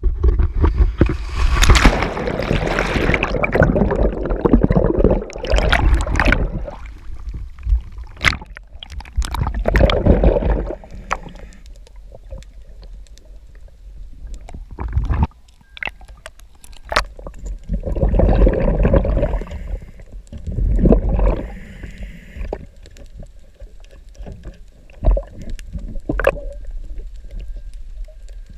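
Water bubbling and rushing around a diver underwater, heard through the camera's housing, in irregular bursts with a deep rumble. It is heaviest for the first six seconds, then comes back in shorter bursts with quieter gaps between.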